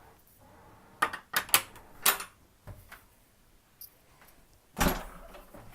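A door being unlatched and opened: a quick series of sharp clicks and rattles about a second in, then a single heavy thump near the end.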